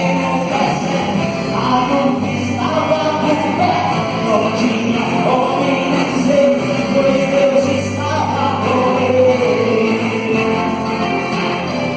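Gospel worship song: voices singing together over a full band with bass and guitar.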